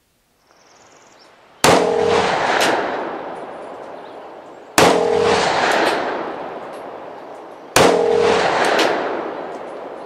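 Three pistol shots from a Yugoslav Tokarev M57 firing 7.62×25 mm surplus ammunition, spaced about three seconds apart. Each sharp crack is followed by a long echo that dies away over a couple of seconds.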